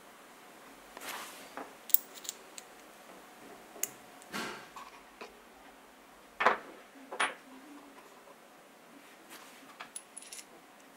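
Small metal drill parts and bearings being handled and set down on a wooden workbench: a scatter of light clicks, clinks and taps, the sharpest about two seconds in and a louder knock about six and a half seconds in.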